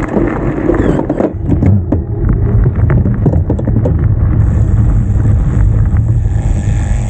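Mountain bike being ridden down a dirt trail, heard from a camera mounted on the bike: heavy wind rumble on the microphone and tyre noise over the ground, with scattered knocks and rattles of the bike, and a steady hiss coming in about four seconds in.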